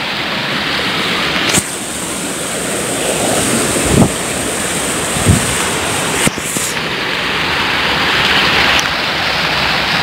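A shallow rocky stream rushing over stones, a steady wash of water, with a few dull low thumps in the middle.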